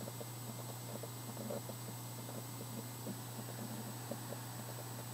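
Low steady hum with faint room tone, no distinct events.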